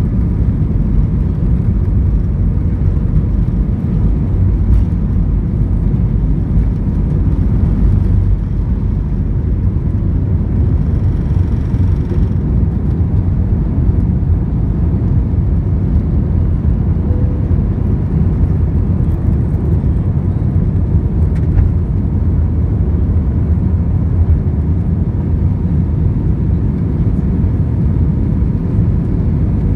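Airbus A320 jet engines and rushing air heard inside the cabin during takeoff and initial climb: a loud, steady, deep rumble with a rushing hiss over it.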